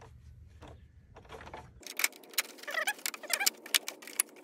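Plastic clips of a 3rd-gen Toyota Tacoma TRD Pro grille insert clicking and snapping as it is pressed into the grille frame, with the plastic creaking. Faint clicks at first, then a rapid run of sharp clicks from about two seconds in.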